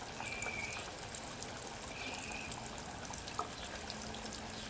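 Cornmeal-battered crappie nuggets frying in hot oil in a countertop deep fryer: a steady sizzling hiss with small pops. Two short high chirps sound in the first half.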